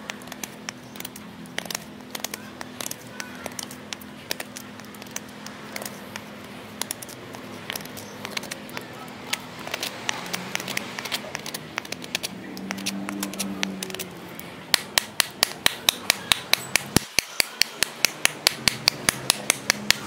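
A seax-style neck knife's steel blade cutting into a small block of wood: scattered sharp cuts at first, then rapid, regular chops about four a second over the last five seconds. Soft background music plays throughout.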